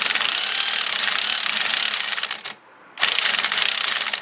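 A 17 mm tool tightening the centre bolt of a three-prong hub puller, giving fast rapid clicking in two bursts with a short pause about two and a half seconds in, as the puller draws the wheel hub and bearing forward.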